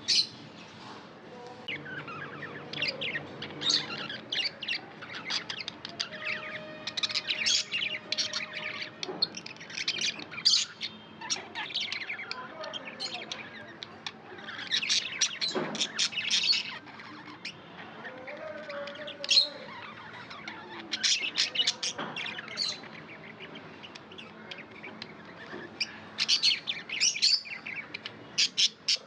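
Pet budgerigars chirping and calling, a busy run of short, high chirps and squawks coming in clusters with short gaps.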